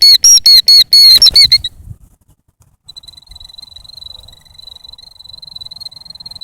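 A bird giving loud, rapid repeated high calls, about five a second, that stop about a second and a half in; after a short pause a quieter steady high note runs on.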